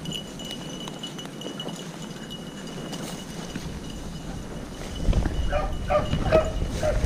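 Hunting beagles baying on a rabbit's trail: a run of short, repeated bawls that starts about five seconds in, over a faint steady high tone.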